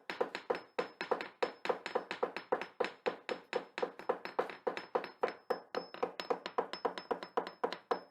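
A fast, even run of hollow knocks, like a wood block being tapped, about five a second, with a faint steady high tone beneath. It cuts off suddenly at the end.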